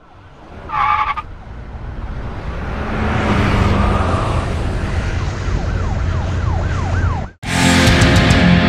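Traffic rumble building up, with a short loud tone about a second in and then an emergency-vehicle siren yelping in quick rises and falls, about two and a half a second. The sound cuts out suddenly near the end and loud heavy rock music with guitar starts.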